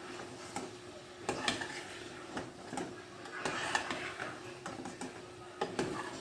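A spoon clinking and scraping against a pot in irregular knocks as the mince is stirred, over a faint steady hum.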